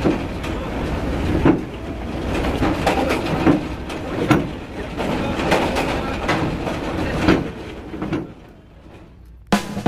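Cars rolling off a ferry over its steel grated ramp: a steady low rumble of engines with irregular metallic clanks every second or two as wheels cross the ramp plates. It goes quieter about eight seconds in, and music with drums starts just before the end.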